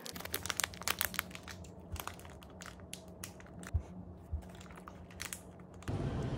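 Clear plastic bag crinkling as it is handled and opened around a baked financier, dense crackles at first that thin out after about a second and a half, with a couple of soft knocks. Near the end a louder steady room background takes over.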